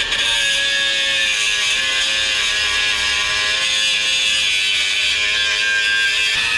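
Electric angle grinder running steadily under load against steel, grinding the galvanized coating off square tube ahead of welding, with a high grinding whine; it eases briefly near the end.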